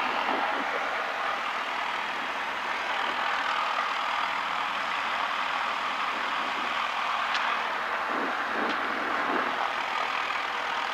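Single-engine light aircraft's piston engine running at idle, heard inside the cabin as a steady, unchanging drone.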